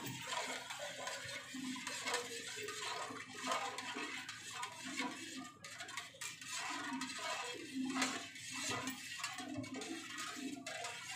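Steel spoon stirring a watery mix of lemon juice, vinegar and baking soda in a stainless steel bowl, scraping and clinking against the metal.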